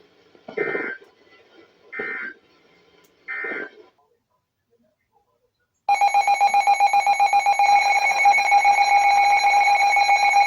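Three short buzzing bursts of Emergency Alert System SAME digital data, each under half a second, then a pause. About six seconds in, a loud, steady Emergency Alert System attention tone begins and holds, sounding the start of a new broadcast alert.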